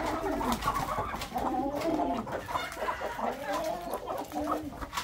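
A flock of hens clucking while they feed, many short calls overlapping one another.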